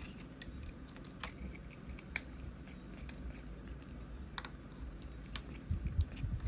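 Kitten eating dry kibble: scattered light clicks and ticks, with soft, low chewing thumps near the end.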